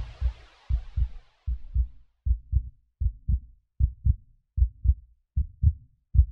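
Heartbeat sound effect: steady paired low thumps, lub-dub, about eighty beats a minute. A faint hiss dies away in the first two seconds.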